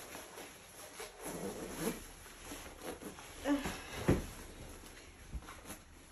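Rustling of a winter parka's fabric as it is zipped up, with a few soft knocks and a sharp thump about four seconds in.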